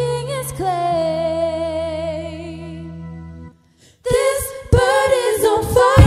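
A female singer holds a long, wavering note with vibrato over a steady low bass note, which steps down about a second in. Both stop about three and a half seconds in, and after a short gap the singing comes back louder near the end.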